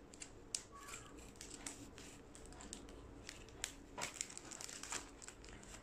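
Faint crinkling and rustling of paper and plastic packaging being handled and pulled open, with scattered small clicks and crackles.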